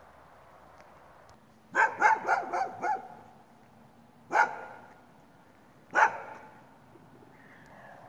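A dog barking: a quick run of about five barks, then two single barks a second and a half apart.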